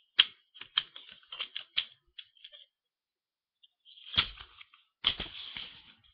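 Items being handled and knocked close to a laptop microphone: irregular clicks and rustles for the first two and a half seconds, then, after a pause, two louder knocks with rustling about four and five seconds in.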